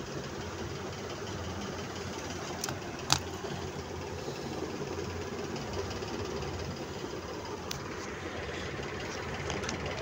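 Steady low background rumble, with a few faint clicks and one sharp click about three seconds in.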